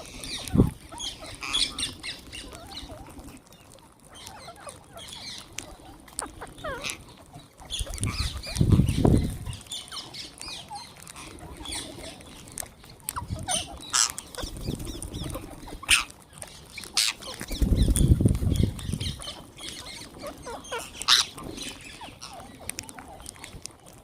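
A flock of wild green parrots calling, with many short, overlapping squawks and chirps throughout. A low rumble lasting a second or two comes twice, about a third of the way in and again past the middle.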